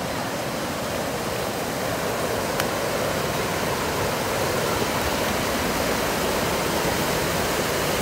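A mountain creek's small waterfall rushing over rocks into white-water pools: a steady rush of water that grows a little louder. One sharp click about two and a half seconds in.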